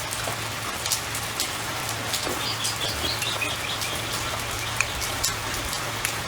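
Steady rain falling, with many sharp drips. A bird calls a short run of high, falling notes about halfway through.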